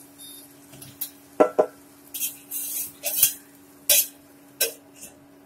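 A metal spatula knocks twice on an aluminium kadai, then an aluminium lid scrapes and clanks down onto the pan in three knocks, over the steady hum of an induction cooktop. A short beep at the very start comes from the cooktop's control panel as its power setting is lowered.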